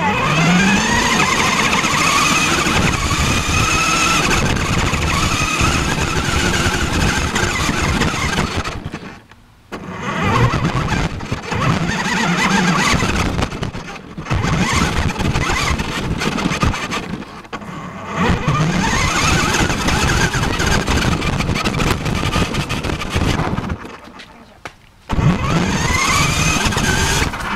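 Radio-controlled car's motor and drivetrain whining, rising in pitch each time it accelerates, over rough rolling noise from its tyres on the ground. It runs in several spells broken by short pauses.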